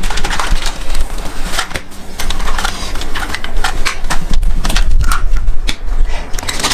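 Rustling of a cloth drawstring bag and irregular clicks and knocks of plastic toys being pulled out and set down on a tile floor.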